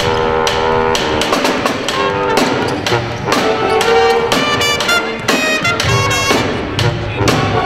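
Music led by brass instruments with a drum beat, holding sustained notes that change every second or so.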